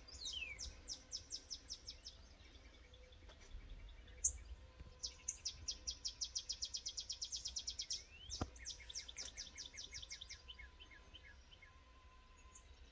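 Songbirds singing: repeated runs of quick, falling high chirps, several a second. A single sharp click comes about four seconds in, and a soft thump a few seconds later.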